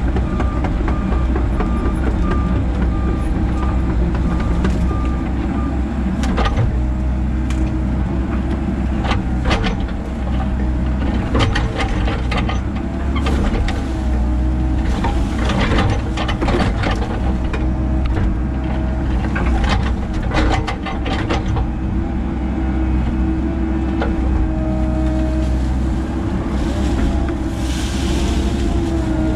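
Hydraulic excavator's diesel engine running under load, heard from inside the cab, with the hydraulic pitch shifting as the arm works. Repeated cracks and thumps come through as the bucket tears out a tree stump and its roots, most of them in the middle of the stretch.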